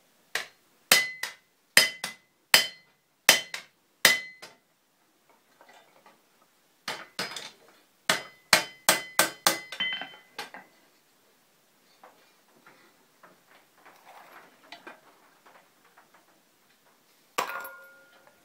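Blacksmith's hand hammer striking iron on an anvil, sharp ringing blows in quick pairs. A run of about a dozen blows at the start, another run about seven seconds in, then light tapping and one more loud ringing blow near the end.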